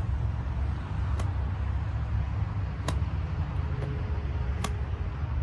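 Three short, sharp ticks about 1.7 seconds apart as a golf club brushes the turf mat at the bottom of continuous rhythmic practice swings, over a steady low background rumble.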